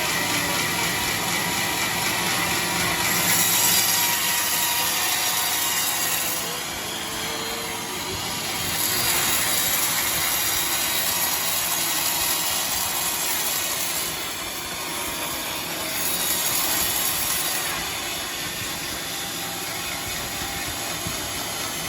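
A power saw cutting wood, with a steady mechanical noise whose high hiss swells and eases in several passes.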